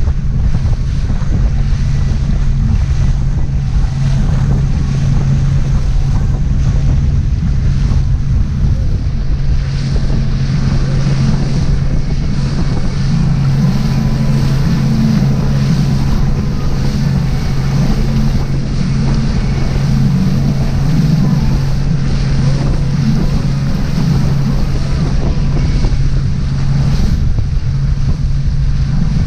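Motorboat running steadily under way, a constant low engine hum under loud wind buffeting the microphone and water rushing past on choppy water.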